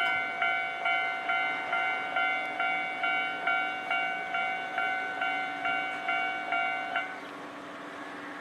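Japanese level-crossing warning bell ringing its repeated ding, a little over two strikes a second. It falls silent about seven seconds in, as the crossing is released.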